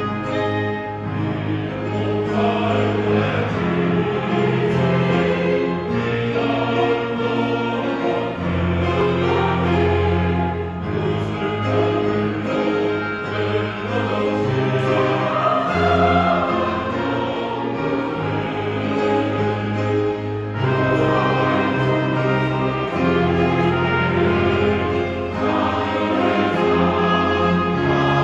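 Mixed church choir singing a Thanksgiving anthem, accompanied by a small orchestra of violins, cello and trombones.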